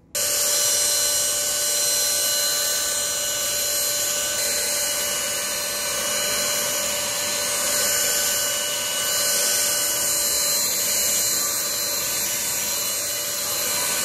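Voar Force D14 cordless stick vacuum running with its brush nozzle, sucking up fine wood dust from a shelf: a loud, steady high-pitched motor whine over rushing air.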